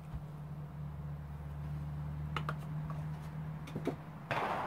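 Spoon stirring dry sugar and flour in a plastic mixing bowl, with a few light clicks of the spoon against the bowl. Under it runs a steady low hum that stops about four seconds in, just before a short rush of noise.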